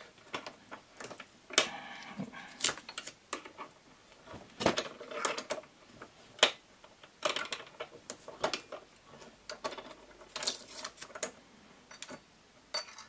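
Irregular small clicks, taps and rustles of hand work at a bench vise: a small model train motor being shifted in the vise jaws and masking tape pressed onto it, with a sharper click about one and a half seconds in.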